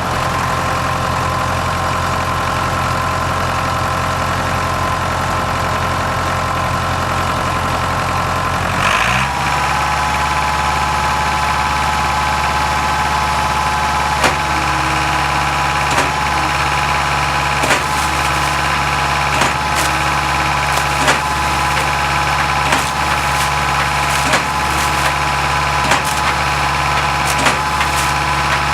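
Engine of a tow-behind concrete pump running steadily; about nine seconds in its speed shifts. From about halfway on, a sharp knock comes roughly every second and a half to two seconds, the pump cycling its strokes over the engine.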